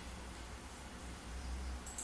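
Faint handling rustle and low rumble from hands working on a robot arm, with one small sharp click near the end as a servo cable connector is pushed into a servo port.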